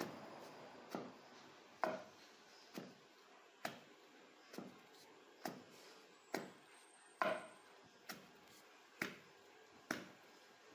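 A wooden pestle pounding dried meat, raw onion and cassava flour in a pilão mortar, a dull thud about once a second. The meat is being crushed into the flour to make paçoca.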